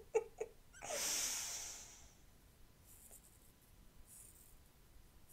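A short giggle, then a long breathy exhale lasting about a second. Later come two faint snips of scissors cutting through a lock of hair.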